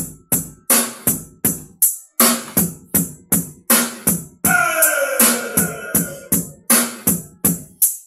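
Dance megamix with a choppy drum-machine beat, about two and a half hits a second, and a falling synth sweep in the middle, played loud through a Konzert SG series three-way speaker cabinet.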